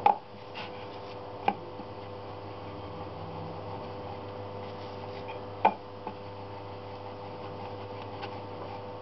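A metal rolling pin rolling dough on a wooden board, knocking sharply against the board three times, over a steady background hum.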